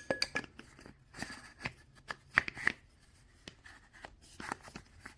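Handling noise from the screwdriver kit: a series of sharp clicks and short rustles as a part that should lock is worked by hand. The loudest clicks come at the very start and about two and a half seconds in.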